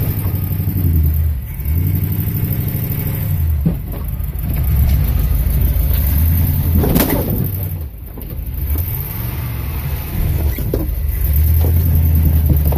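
Vehicle engine revving up and down under load, heard from inside the cab, while branches scrape against the windows. A loud knock about seven seconds in, with smaller knocks around four and eleven seconds.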